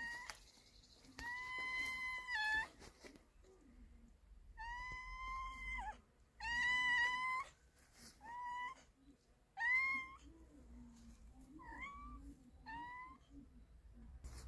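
Hungry stray cats meowing for food: about eight high, drawn-out meows, the first few over a second long and the later ones shorter.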